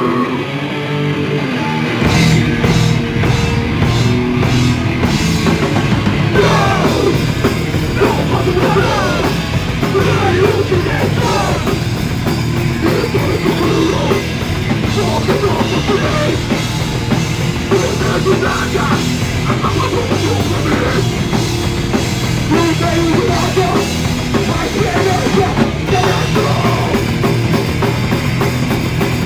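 Punk band playing live: distorted electric guitars, bass and drum kit, with vocals, recorded on a phone. A held chord rings for the first two seconds before the drums and full band come in.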